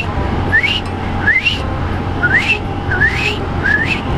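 A short rising whistle-like chirp repeats about every 0.7 s over the steady running and wind noise of a moving Italika D125 LT 125 cc scooter.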